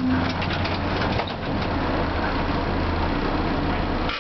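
Tosa Electric Railway streetcar standing at rest with a steady low hum from its onboard equipment that stops near the end, over the noise of passing road traffic and a few light clicks.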